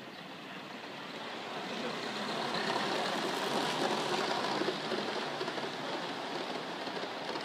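Gauge one live steam model train running past: the locomotive and its coaches make a steady rushing, rolling noise on the rails. It swells to its loudest about three to four seconds in and fades as the coaches go by.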